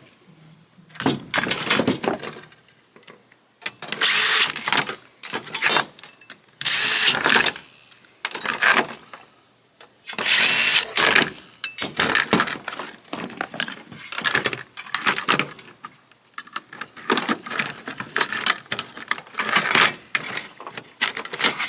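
Tools and metal parts of an oscilloscope clattering and scraping as it is taken apart, in irregular bursts. The loudest bursts last about a second each.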